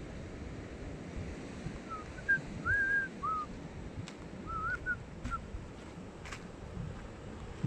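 A few short whistled notes, some gliding up and some down, come in quick phrases from about two to five seconds in, over a steady rumble of wind on the microphone, with a few faint clicks.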